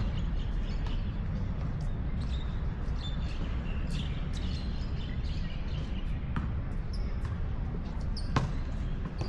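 A basketball bouncing on an outdoor court, with a few separate knocks, the sharpest and loudest about eight seconds in. Under it runs a steady low rumble, with scattered short high chirps.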